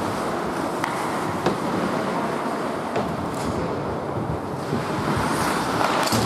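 Indoor ice hockey rink ambience at a stoppage in play: a steady noisy hum of the hall, with a few sharp clicks and knocks in the first three seconds.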